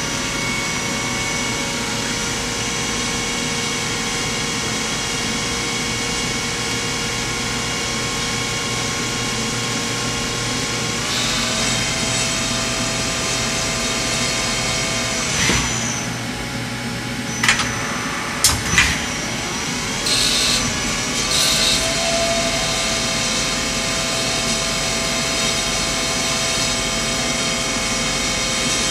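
Eurotech 420-SLL twin-spindle CNC lathe running: a steady whine of spindle and servo motors over a mechanical hum, the tones shifting about eleven seconds in as the machine changes motion. A few sharp clunks a little past halfway, then short bursts of hiss.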